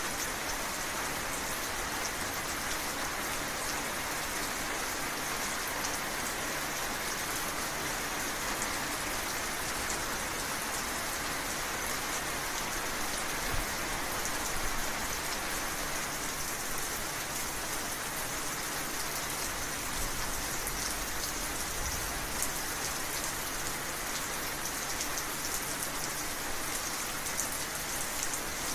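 Steady heavy rain falling, with dense patter of drops on surfaces; a faint low rumble swells briefly about halfway through and again later.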